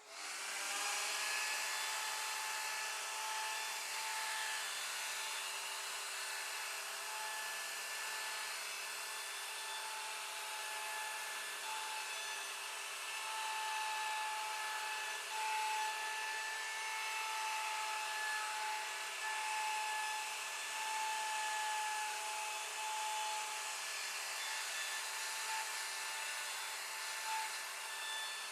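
CNC router spindle carving MDF: a steady high-pitched spindle whine over the hiss of the bit cutting, the whine dropping in and out as the cutter bites.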